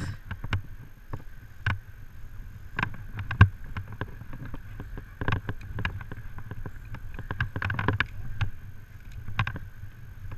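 Abseiling gear in use during a rope descent down a tower face: irregular sharp clicks and knocks of the descender, carabiners and rope handling, and feet against the wall. Under them run a low rumble and a faint steady high tone.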